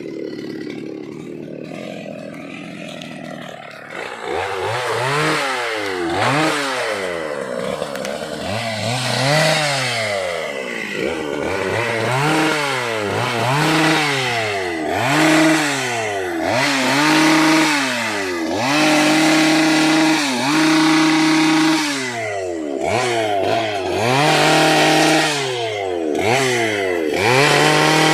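Two-stroke chainsaw engine running, low and steady for the first few seconds, then revved up and down over and over, with a few longer holds at high speed.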